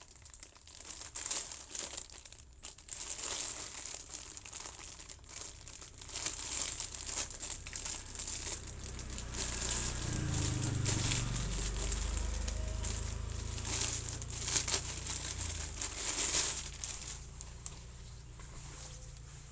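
Packaging crinkling and rustling as it is handled during the unboxing of a blazer, with a low rumble rising and falling through the middle.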